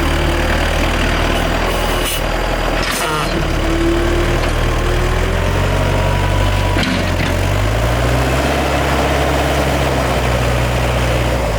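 Large excavator's diesel engine running steadily, its note stepping up about seven seconds in, with a few sharp clicks and a thin gliding whine over the hum.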